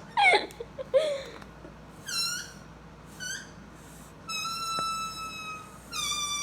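A rubber balloon's stretched neck squealing as air escapes through it: a few short high squeals that dip in pitch, then two long, steady high squeals near the end.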